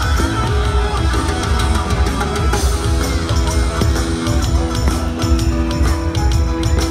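Loud music with a heavy pulsing bass, held notes and percussion.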